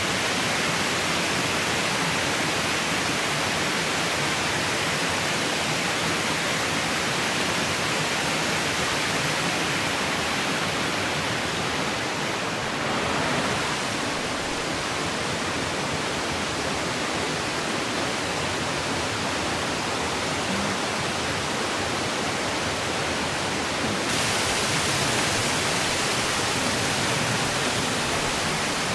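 Rushing water of a mountain stream and its waterfalls, a steady, loud rush whose tone shifts slightly about 12 seconds in and again near 24 seconds.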